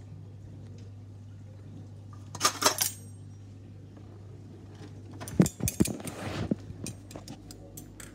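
Metal cutlery clinking and rattling in a stainless-steel drawer tray as a fork is picked out: a short burst of clinks about two and a half seconds in, and a longer run of clatter and knocks from about five to six and a half seconds. A low steady hum sits underneath.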